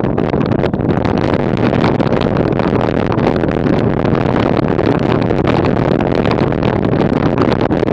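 Steady, loud wind rush and ride noise on the microphone of a camera mounted on a bicycle moving at about 30 km/h, with many small rattles through it.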